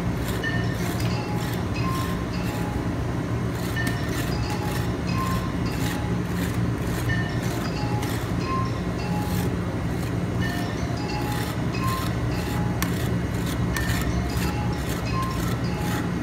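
Music with a slow melody of single high notes, over short clicks and scrapes of a flat metal spatula on the steel cold plate of a rolled ice cream machine, and a steady low hum.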